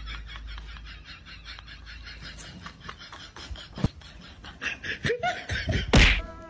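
Quiet snickering laughter in quick, even pulses, with a sharp knock about four seconds in and a louder thump near the end.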